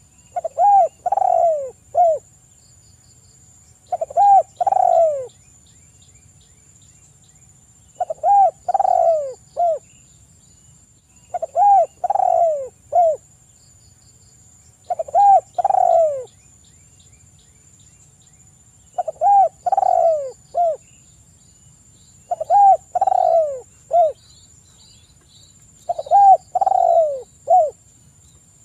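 Spotted dove cooing: eight phrases of three or four coos each, every phrase about a second and a half long, with the last coo short and set apart, repeated every three to four seconds.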